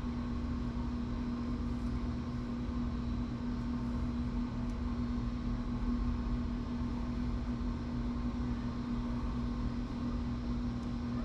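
Steady machine hum with a constant low drone and one clear steady tone, unchanging throughout.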